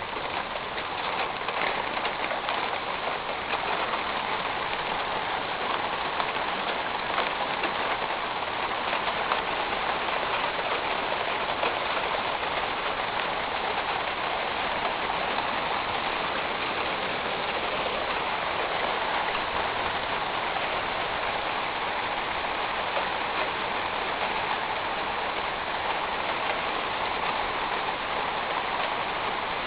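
Steady rain falling on a metal roof, a dense, even patter that builds a little in the first couple of seconds and then holds.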